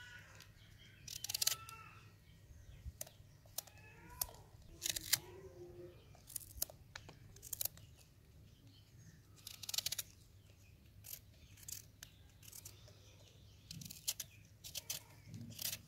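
Small knife cutting chunks off a peeled raw green mango held in the hand. The cuts are short and crisp and come at irregular intervals, about one a second, as the pieces drop into a stone mortar.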